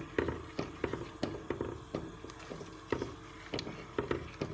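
A spoon stirring a wet coconut, milk and semolina mixture in a pan, knocking against the pan in irregular strokes, about three a second.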